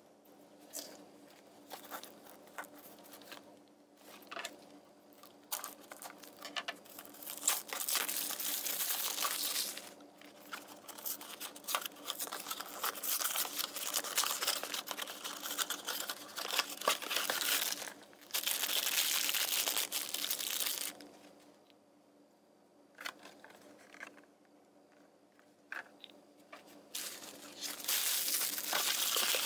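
Foil and plastic blind-bag packaging being torn open and crinkled by hand, along with a small cardboard box being opened, in several long stretches of rustling with short quiet gaps between.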